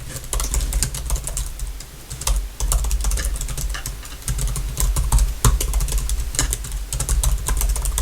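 Fast, close-miked typing on a computer keyboard: a dense run of key clicks with a low thud under each stroke, easing off briefly twice before picking up again.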